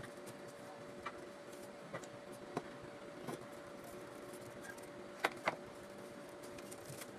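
Hands handling paper banknotes and small objects on a countertop: scattered light clicks and taps, with a sharper double click about five seconds in, over a steady electric hum.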